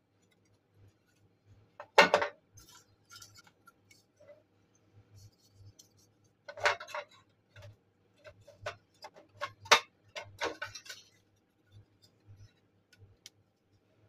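Hard plastic and aluminium parts handled and set down against one another: scattered knocks and clicks, the sharpest about two seconds in, then a run of them in the second half.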